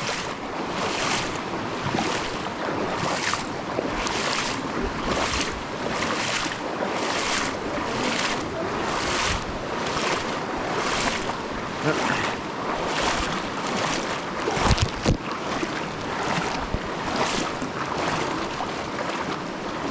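Legs wading through a shallow river, splashing in an even rhythm of about one and a half strides a second over the steady rush of flowing water. A short low thump about three quarters of the way in.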